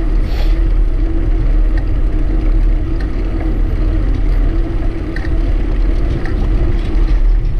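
Wind and road noise from a bicycle rolling along a paved trail, picked up by a camera mounted on the bike: a loud, steady low rumble with a steady hum running through it and a few faint ticks.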